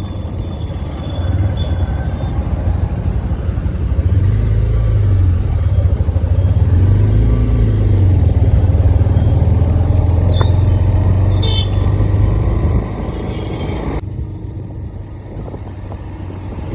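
Motorcycle running while being ridden on the road, its engine note stepping up and down; it gets louder about four seconds in and eases off a little before the end.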